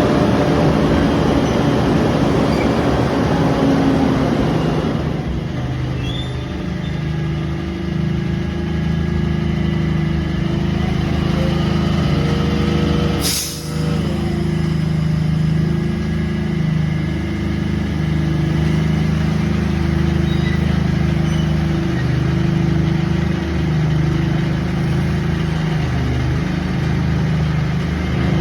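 An engine running steadily, with one sharp click about thirteen seconds in.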